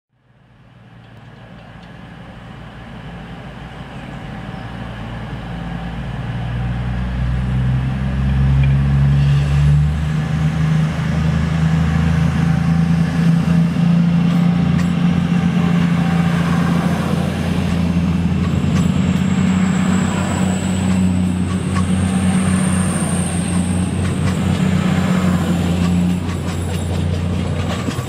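Class 222 Meridian diesel-electric multiple unit pulling away under power, its underfloor Cummins diesel engines building up over several seconds to a loud, steady drone as the carriages pass close by. A thin high whine rises and falls during the second half.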